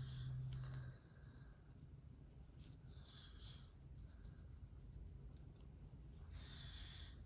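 False fingernails scratching through a child's scalp and hair in quick repeated strokes, loosening dandruff. A low snore from the sleeping child runs until about a second in, then stops.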